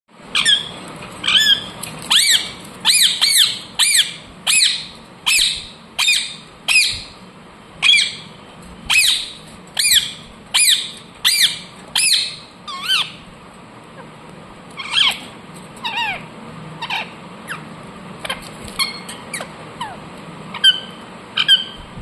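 Rose-ringed (Indian ringneck) parakeet giving short, shrill squawks in quick succession, about one to two a second. About halfway through the calls thin out to fewer, fainter ones.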